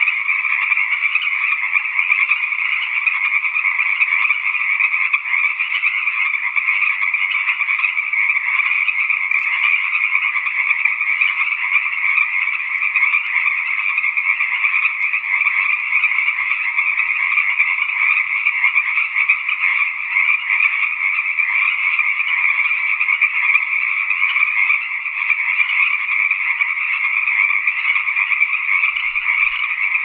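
Tree frogs calling in a dense, unbroken high-pitched chorus that holds steady throughout.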